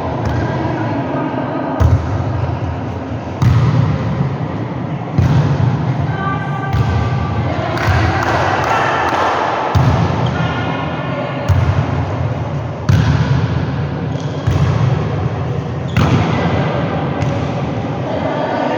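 Volleyballs being struck and bouncing on a gym floor, a sharp thud about every second and a half, over a steady wash of players' voices in a large hall.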